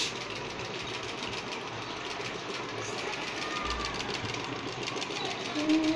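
Homemade Stirling engine running and driving a sewing machine through a belt: a steady, rapid mechanical clatter.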